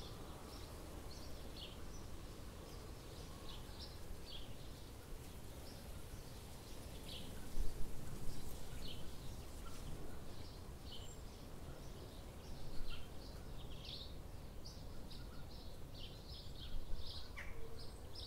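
Small birds chirping in short, scattered calls over a steady low rumble of background noise, with a few louder dull bumps.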